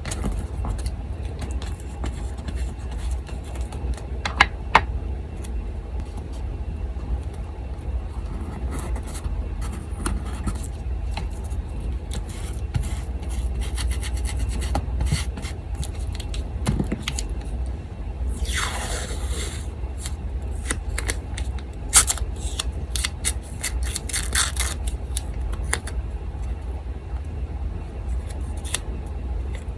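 Paper being handled and scraped on a desk, with scattered small clicks and one longer falling scrape about nineteen seconds in, over the steady low hum of an electric fan.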